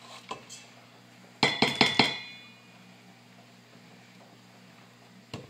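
Metal beaters of a hand mixer knocking against a stainless steel mixing bowl: a quick run of three or four clinks about a second and a half in, each ringing briefly, with a faint tap near the end.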